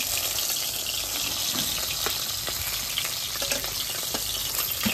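Oil sizzling steadily around fried pomfret in a metal kadai, with a few light clicks of a spatula against the pan as the fried fish is lifted out.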